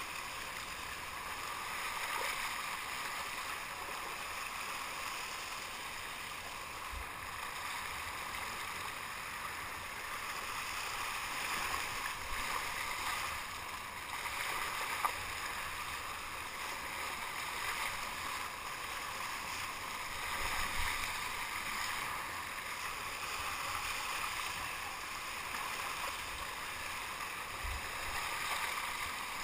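Water rushing and splashing along a touring kayak's hull as it is paddled hard, the paddle blades churning the surface on each stroke.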